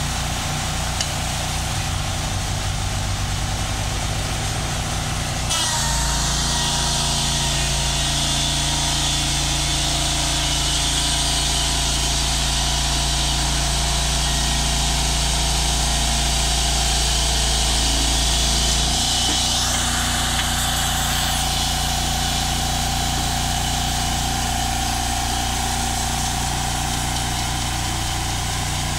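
Engine of a portable band sawmill running steadily. About five seconds in it speeds up and runs louder with a brighter hiss, then settles back to a lower, steady run about nineteen seconds in.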